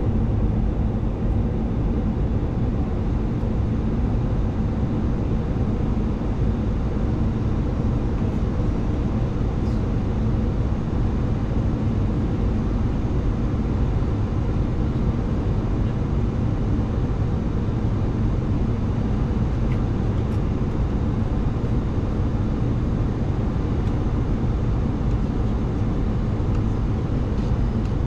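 Steady flight-deck noise of a Boeing 737-800 in flight: an even rush of airflow over the cockpit with a low hum.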